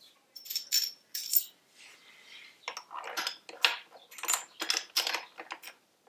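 Small metal parts clinking and tapping as a bolt, aluminum washer and thin metal cover are handled and fitted to a motorcycle's exhaust hanger mount: a scattered run of light, bright metallic clinks, closer together in the second half.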